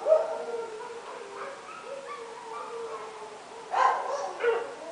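Dogs barking at night: one bark at the start and two close together near the end, with long, wavering, whining cries in between.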